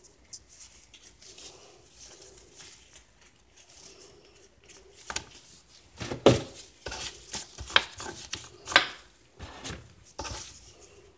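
Kitchen utensils knocking and scraping against hard surfaces: small scattered clicks at first, then a run of sharp clacks and scrapes in the second half, the loudest about six seconds in and again near nine seconds.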